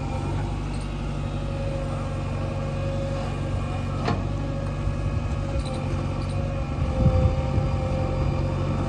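Heavy diesel engine running steadily, with a sharp click about four seconds in and the engine growing louder and rougher about seven seconds in.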